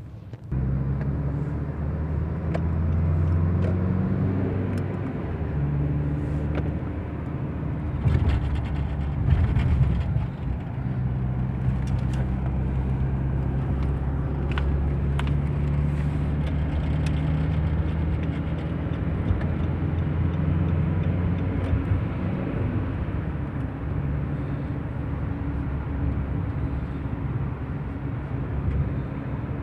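A car driving, heard from inside the cabin: a steady low engine and road hum whose pitch shifts up and down as the car changes speed, with a few light clicks and knocks.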